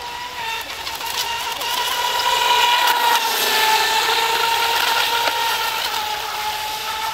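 Atomik Barbwire electric RC speed boat running flat out across the water, its motor giving a steady high whine that grows louder about two seconds in and sinks a little in pitch towards the end.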